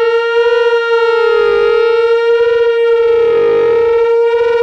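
Warning siren sounding one loud, long, steady tone with a slight slow waver in pitch.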